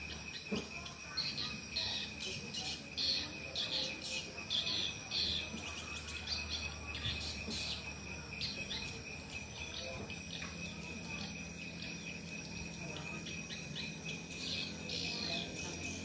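Swiftlets twittering: short high chirps in quick clusters, thick in the first half, thinning out, then picking up again near the end, over a steady high-pitched tone.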